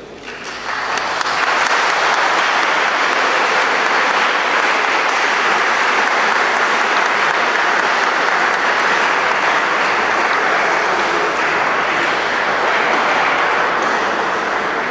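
Audience applauding, swelling up in the first second and then holding steady.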